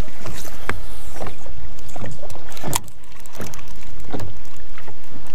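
Small wind-driven waves slapping and lapping against the hull of a small fishing boat, with a hollow splash about once a second.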